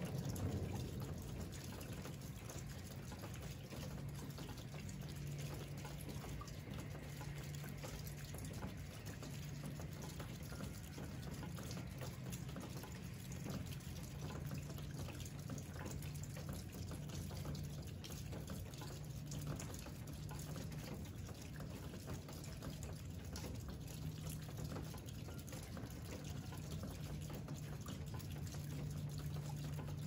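Steady rain falling, with many small drops ticking and a continuous low hum underneath.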